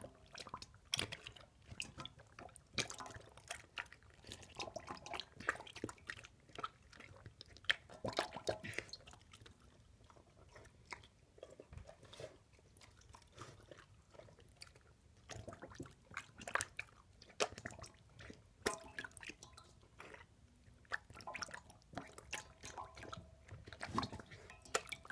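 A dog eating cereal from a bowl: irregular chewing, crunching and wet lapping, with many sharp clicks scattered throughout.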